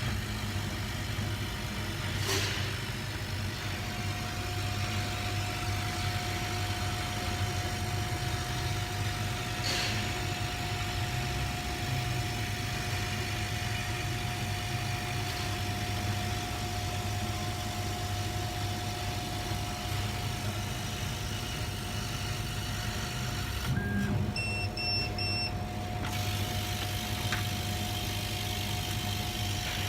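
Kamach 6090 HYPE CO2 laser cutting machine running with its support equipment: a steady low hum, joined about four seconds in by a steady thin whine. Near the end there is a brief run of short electronic beeps.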